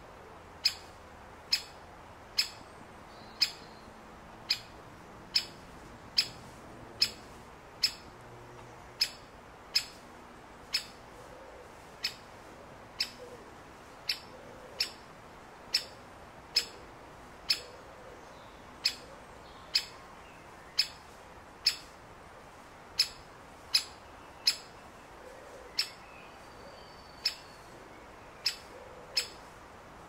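Great spotted woodpecker giving its sharp single 'kik' call over and over, about once a second with a few short pauses.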